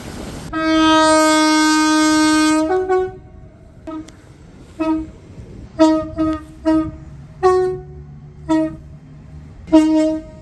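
Two-tone train horn: one long blast of about two seconds on the low note that steps briefly up to the high note, then a string of about eight short toots, mostly on the low note.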